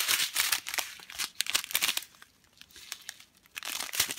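Small plastic zip-lock bags of diamond painting drills crinkling and clicking as they are picked up and handled, busiest in the first two seconds and again near the end.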